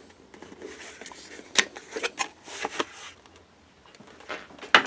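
Hard-shell plastic carrying case of spade bits being handled, giving a string of sharp plastic clicks and knocks, with a louder cluster near the end.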